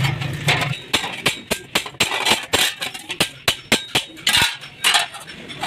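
Repeated sharp metal clinks and knocks, about three to four a second and irregular, with one heavier knock about four seconds in: steel being worked.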